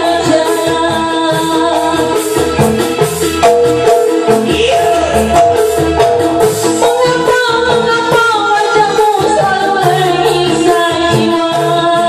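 A woman singing into a handheld microphone over a loud backing music track, karaoke-style.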